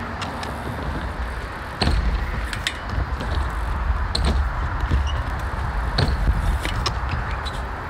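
BMX bike riding on a concrete skatepark bowl: tyres rolling over the concrete with a low rumble, broken by several sharp knocks and clicks as the bike hits the concrete and coping, the loudest about two seconds in.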